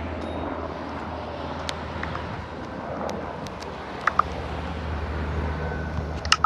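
Sikorsky UH-60 Black Hawk helicopter circling low overhead, a steady low drone of rotors and turbines that eases off for a moment and then grows louder from about four seconds in.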